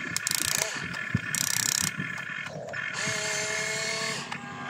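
Electric gear motors of a radio-controlled model excavator whining as the arm curls and lifts a bucket of soil, starting and stopping in short runs, with a few small knocks in the first second or so.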